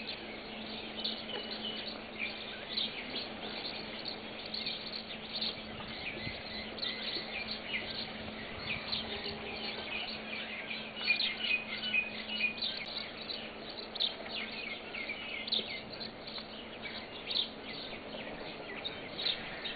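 Birds chirping: many short, high chirps, busiest in the middle of the stretch, over a low steady hum.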